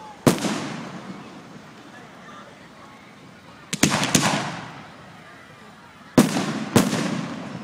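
Aerial firework shells bursting, each a sharp bang trailing into a rolling echo. One comes just after the start, a quick cluster of three or four cracks follows about four seconds in, and two more bangs about half a second apart come near the end.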